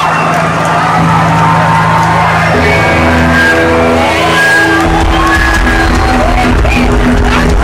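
Rock band playing live in a large hall, loud through the PA, with the crowd shouting and whooping over it. The low end gets much heavier about five seconds in.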